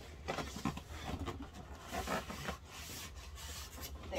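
Cardboard and styrofoam packing rubbing and scraping in a series of irregular strokes as a boxed sewing machine is worked up out of its carton.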